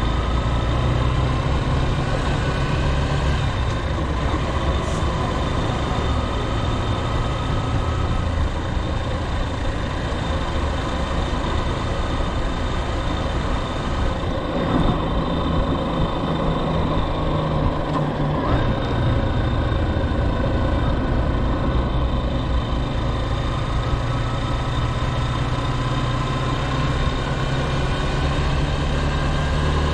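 Motorcycle engine running during a ride in traffic, its low hum shifting in pitch a few times, over a steady rush of noise.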